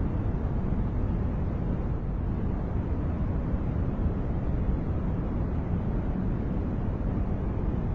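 Steady, unchanging noise track sold as white noise, weighted heavily toward the low end: a deep, even rumble with little hiss above it.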